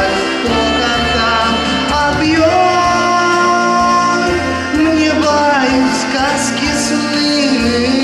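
Background music: a song with a held, gliding melody line over a steady instrumental accompaniment.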